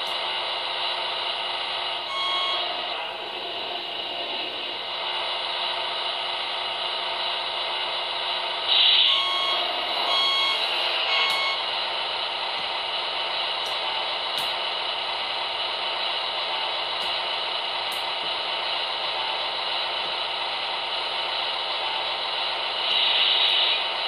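Electronic sound module of a model wheel loader (Beier USM-RC-2) playing a steady diesel-engine running sound. A reversing beeper sounds once about two seconds in and three times between about 9 and 11 seconds. Short noisy bursts come near 9 seconds and near the end.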